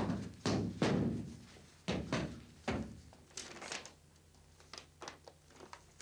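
Fists punching a heavy canvas punching bag: about six dull thuds at uneven intervals over the first three seconds. After that, quieter paper rustling and small ticks as a sheet of paper is handled.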